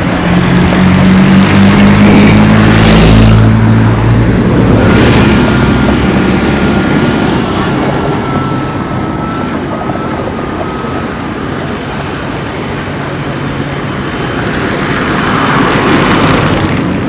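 A motor vehicle passing close, its engine giving a loud low drone for the first few seconds. Road traffic noise follows, with another vehicle swelling past near the end.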